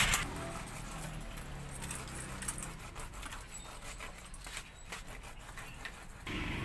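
Raw cassava being grated on a stainless steel box grater over a steel bowl: faint, irregular rasping strokes.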